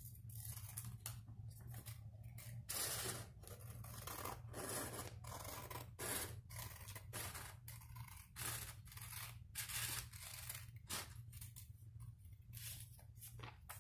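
Scissors cutting through a sheet of paper: a long run of uneven snips, a few of them drawn out longer, fairly faint.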